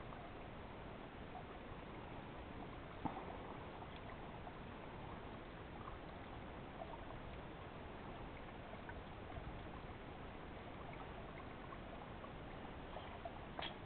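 River water flowing steadily, with a few faint clicks over it and one sharper click about three seconds in.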